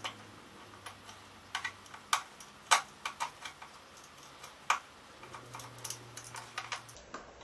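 Irregular sharp clicks and taps of a hand screwdriver on a screw as it is driven through a yo-yo into a wooden board.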